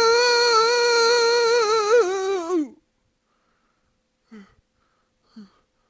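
A person's voice holding one long, wavering, high-pitched cry for about two and a half seconds; it drops in pitch and cuts off near the middle. Two short faint vocal sounds come later.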